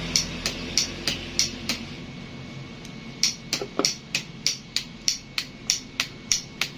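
A starter relay rigged as a turn-signal clicker, clicking sharply about three times a second in step with the flasher relay. It pauses for about a second about two seconds in, then resumes.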